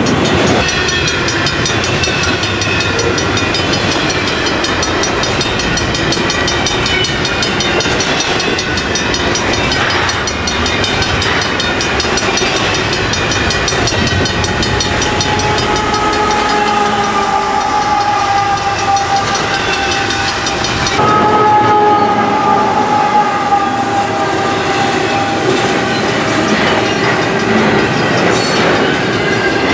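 Double-stacked container well cars of a long intermodal freight train rolling past close by: a steady rumble and clatter of steel wheels on rail. Through the middle stretch a high-pitched steel wheel squeal rings over it, slowly falling in pitch.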